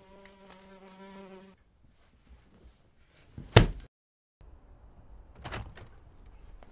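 A bluebottle fly buzzing at a steady pitch for about a second and a half, then stopping. About two seconds later comes a single loud thump, the loudest sound, followed by a few softer knocks.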